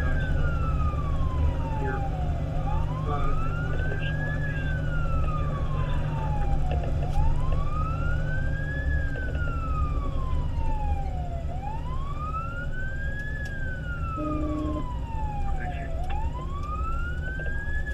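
Fire engine siren on wail, sweeping up and then slowly down about every four and a half seconds, over the steady low drone of the truck's engine and road noise.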